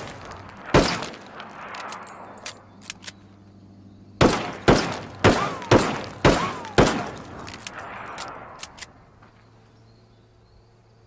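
Peacemaker revolver firing: one shot, a few small metallic clicks, then six shots about half a second apart, each ringing out in an echoing tail, followed by more metallic clicks.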